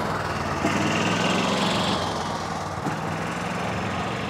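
Small gasoline engine of a golf cart running steadily as it drives along, a low even hum.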